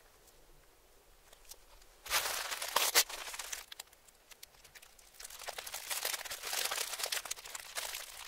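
Aluminium foil wrapped around a sub sandwich, crinkling and crackling as it is handled, played in reverse. It is quiet for about two seconds, then comes a loud burst of crinkling, a short lull, and dense crinkling again from about five seconds in.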